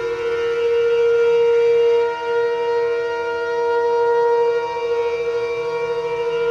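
Background instrumental music with long sustained notes held over a steady drone.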